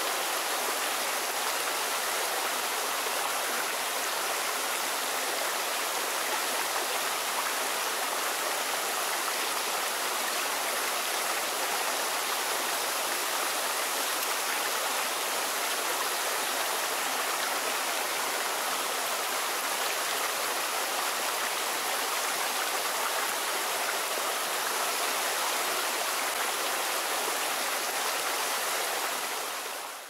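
Waterfall and its stream rushing over rocks: a steady, even rush of falling water that fades out near the end.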